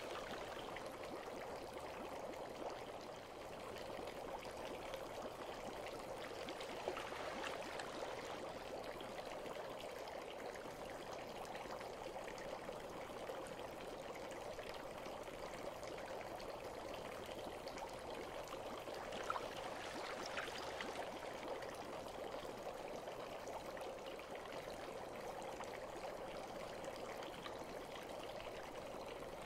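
Bath water trickling and bubbling steadily, with a couple of brief sharper plinks standing out about seven and nineteen seconds in.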